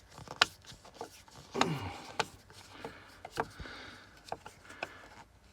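Carbon-brush holders being prised out of a power tool's motor housing: scraping and rubbing with several sharp clicks of plastic and metal parts.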